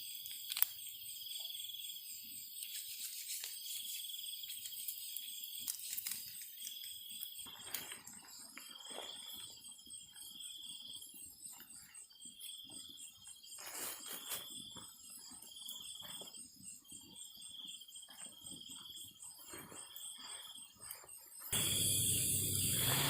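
Night insects calling: a cricket-like chirp repeating in regular pulses about once a second, with a higher continuous trill above it and scattered faint clicks. Near the end a louder rustling noise suddenly starts.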